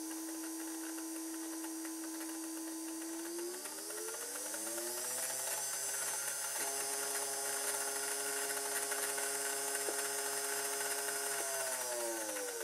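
Whine of the two small electric motors and gear drive of a model locomotive under provisional power, with the motors being gently shifted by hand to find their best position. The whine rises in pitch about four seconds in, holds higher, and falls back near the end.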